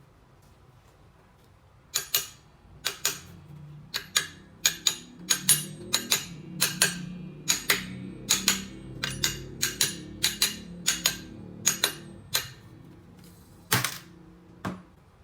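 A series of sharp taps or knocks, irregular but roughly two a second, starting about two seconds in, with a louder last pair near the end.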